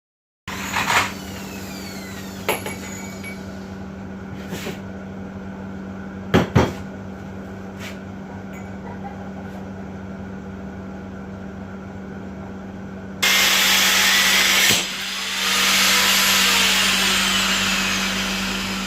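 A few sharp knocks over a steady hum, then a loud power tool starts suddenly about two-thirds of the way through and keeps running.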